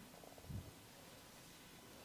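Near silence: room tone, with one soft, low thump about half a second in.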